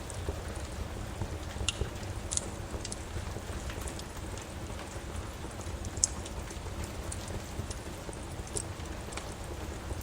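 Steady rain with a low rumble, and a wood fire crackling over it with scattered sharp pops, a few louder ones standing out.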